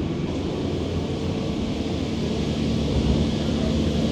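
Passenger train running, a steady low rumble of wheels and carriage heard from on board, with a faint steady hum over it.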